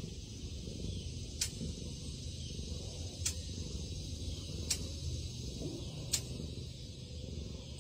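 Domestic cat purring steadily close to the microphone, a low continuous rumble, with a faint sharp click about every second and a half.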